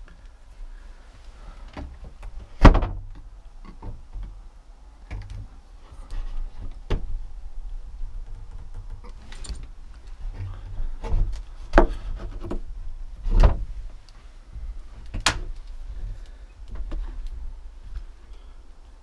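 Scattered knocks, bumps and thuds of someone moving about and handling things in an old house, the loudest a sharp knock about three seconds in, over a low rumble.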